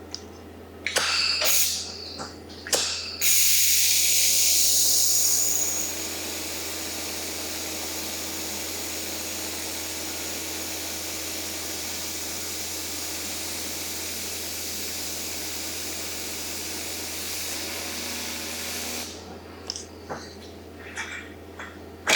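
ForestCNC laser welder welding stainless steel: a few clicks and knocks at the start, then a steady hiss of shielding gas that comes on suddenly, is louder for its first few seconds, and stops after about sixteen seconds.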